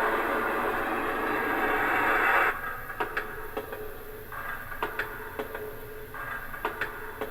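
A toy flashlight's built-in spooky sound effect plays through its small speaker as a steady noisy rush, then cuts off about two and a half seconds in. After that come scattered sharp clicks and a couple of brief fainter noisy sounds.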